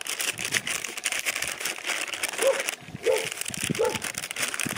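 Dogs barking three times in the second half, short barks, over the crinkle of plastic MRE packaging being handled.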